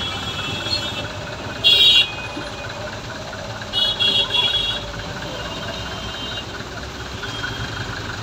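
Motor vehicle engine running steadily in dense street traffic. A vehicle horn blares once, loud and held, just under two seconds in, then gives three short toots around four seconds.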